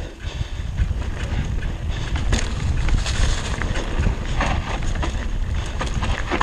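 Mountain bike descending a rough dirt trail: wind buffeting the bike-mounted microphone over the clatter of the bike and its tyres on dirt and dry leaves, with scattered sharp knocks as it rolls over bumps.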